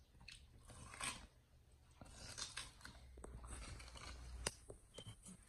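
Chimpanzee biting into a mini watermelon and chewing it: crunching and tearing of the rind, with a few sharp snaps.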